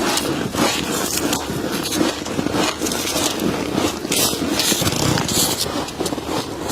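Freezer frost crunching as it is eaten by hand: a continuous run of irregular, close crunches and scrapes, several a second.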